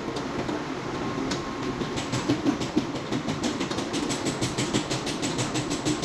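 Fast, even mechanical clatter: a rapid run of sharp ticks, several a second, over a steady low drone.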